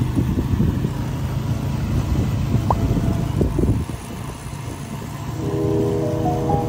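Engine running with a steady low rumble, which drops off about four seconds in; background music comes in near the end.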